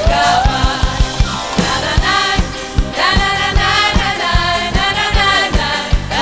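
Live gospel worship song: lead singers and a choir singing together over a band, with a drum kit keeping a steady beat.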